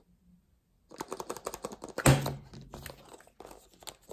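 A plastic surprise egg being handled: starting about a second in, a quick run of plastic clicks and rattles, loudest about two seconds in.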